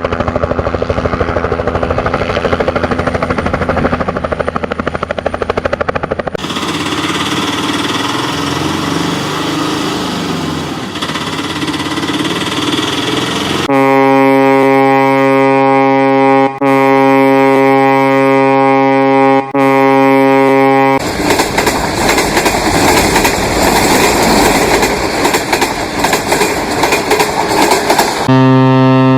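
A run of separate vehicle sound effects cut one after another. First an engine running with a fast rattle, then another mechanical running sound. Then a long steady horn-like blast broken twice, then a loud rushing noise, and near the end another deep horn-like tone starts.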